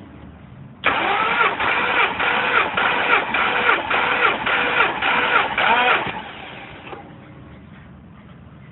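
Starter motor cranking the Noble M12's V6 engine over with its spark plugs out, for about five seconds, for a compression test. It makes an even pulse about twice a second and stops without the engine firing, while the gauge reads about 190 psi for the cylinder.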